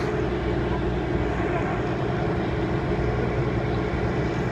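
A motor vehicle running steadily on the move: a continuous low engine hum mixed with road and wind noise.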